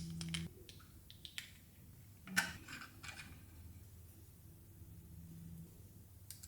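Small plastic toy pieces being handled: scattered light clicks and taps, with one louder knock about two and a half seconds in.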